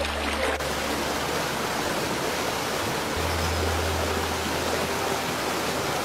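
Waterfall's rushing water, a steady wash of noise that sets in about half a second in, over background music with held low bass notes.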